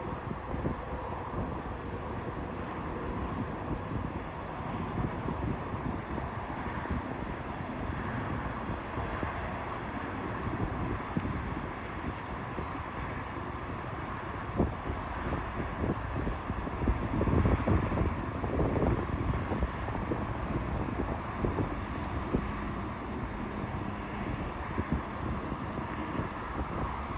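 Wind rushing over the microphone and the rolling hum of an InMotion E20 electric unicycle being ridden, steady throughout, with a louder rush of wind about two-thirds through.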